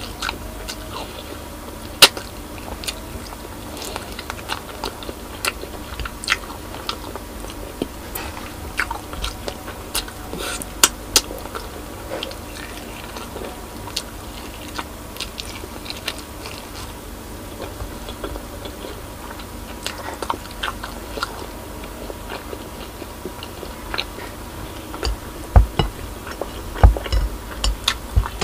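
Close-up chewing and biting on braised pork spare ribs: many short wet mouth clicks and smacks scattered through. A few louder low thumps come near the end.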